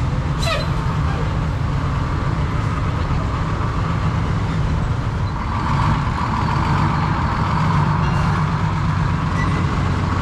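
Antique American LaFrance fire engine running at low speed as it drives slowly past close by, a steady low rumble that grows louder about halfway through. A brief falling whistle sounds about half a second in.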